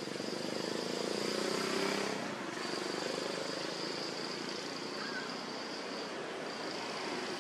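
Outdoor ambience: a distant motor vehicle hum that swells and then fades about two seconds in, under a steady high-pitched buzz that drops out briefly twice.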